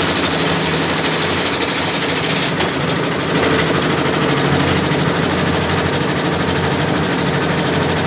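Concrete mixer with a lift hoist, its engine running steadily and loudly while the lift bucket is worked. A higher hiss stops about two and a half seconds in.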